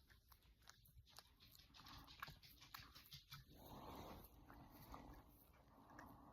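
Very faint sounds of a pet dog close by: scattered light clicks, then a soft, noisy breathing sound from about halfway through.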